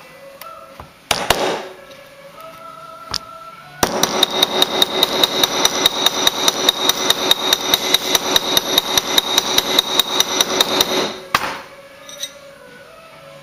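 Rapid, even hammer blows on a cast bronze ring fitted over a metal ring mandrel, about five a second for some seven seconds, each with a metallic ring; one single knock comes about a second in. The ring is being hammered round on the mandrel.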